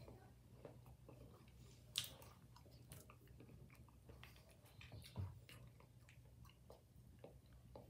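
Faint chewing and biting of juicy fresh fruit slices, with soft wet mouth clicks and a couple of sharper clicks about two seconds in and again near five seconds.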